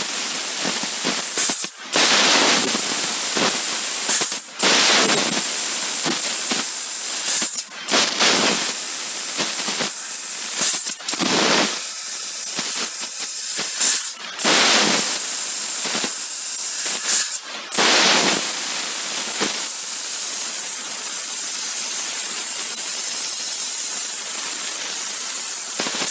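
Fiber laser cutting machine cutting stainless steel plate: a loud, high hiss from the cutting head, stopping for a moment about every three seconds, then running without a break for the last third.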